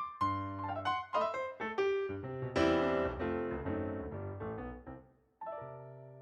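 Piano music: a run of quick notes, a full loud chord about two and a half seconds in, then a final chord near the end left ringing and slowly fading.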